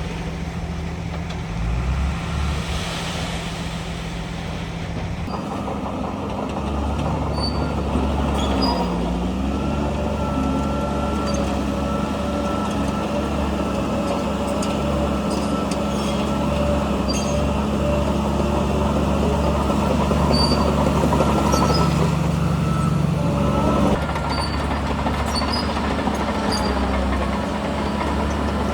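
Diesel engine of heavy earthmoving machinery running and working, louder and under more load from about five seconds in. Its pitch dips briefly and recovers near nine seconds. Scattered short metallic clicks and clanks sound over it.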